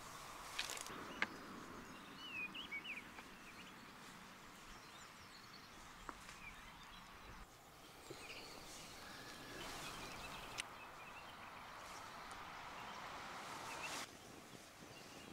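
Quiet outdoor ambience: a steady background hiss with a few short bird chirps about two to three seconds in, and scattered faint clicks.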